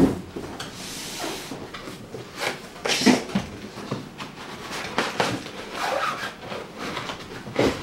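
A cardboard box set down on a workbench with a thump, then its flaps opened and the foam packing inside rubbed and shifted: scraping, rustling cardboard and a few knocks.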